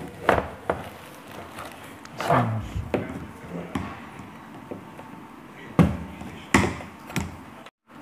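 Telescopic vacuum-cleaner tube and plastic floor nozzle being handled and fitted together: a scattered series of knocks and clicks, the sharpest about six seconds in.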